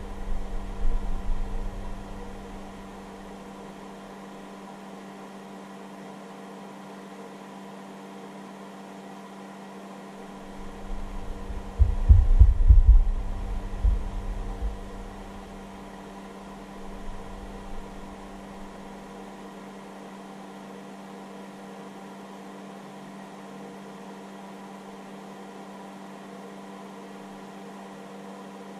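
Steady electrical hum and fan noise from a hobby charger running as the load on a battery discharge test. Low, dull thuds come in the first couple of seconds and again between about ten and fourteen seconds in, loudest around twelve seconds.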